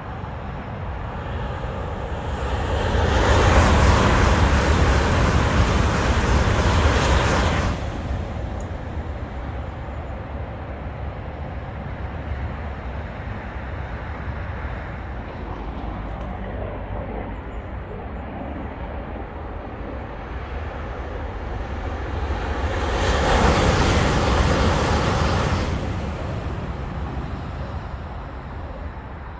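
A high-speed electric train on High Speed One passes at speed: a loud rushing noise that builds over a couple of seconds, holds for about four seconds, then drops away abruptly. A second, weaker rushing swell comes about twenty seconds later, over a constant low rumble of motorway traffic.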